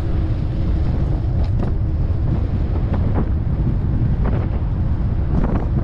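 Wind buffeting the microphone of a camera riding along on a moving bicycle, a steady low rumble, with a few short knocks or rattles scattered through it.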